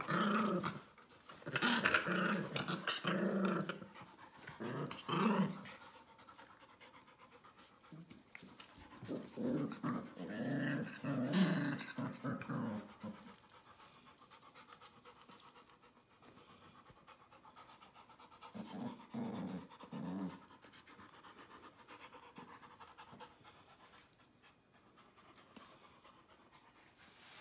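Puppies vocalizing while they play-fight, in three bouts of short, broken calls: a long bout at the start, another around ten seconds in, and a brief one later, with quieter scuffling between.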